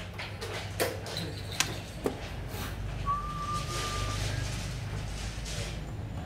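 Xiangqi pieces clicking on a wooden board as a move is played: a few light clicks, then one sharp clack about a second and a half in as the piece is set down. A faint whistle-like tone follows for about a second near the middle.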